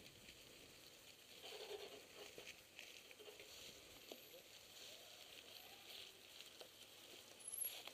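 Quiet rustling and light clicks of a mountain bike rolling slowly over dry fallen leaves, with faint distant voices.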